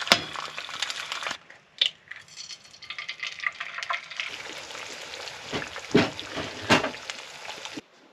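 Eggs sizzling in a hot skillet, with a sharp crack right at the start as an egg is broken over the pan. There are several loud knocks against the pan later on.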